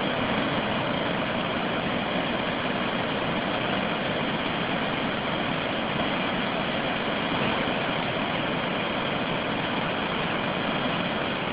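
Steady roar of a river in flood, a fast, turbulent torrent spilling over its banks and carrying debris.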